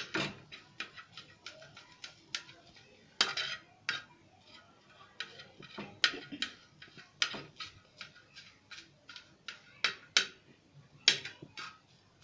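A metal knife and spatula clinking and scraping on a tawa as cooked chicken is chopped fine: irregular sharp taps a few per second, with a louder knock every two or three seconds.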